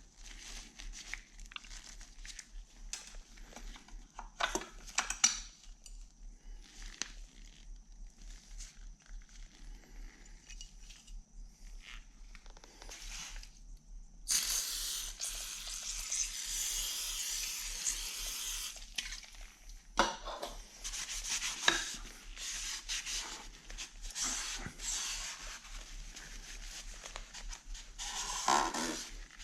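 Small metal parts of a milling-machine brake assembly being handled and scrubbed: scattered light clinks, taps and rubbing, with a steady hiss lasting about five seconds midway.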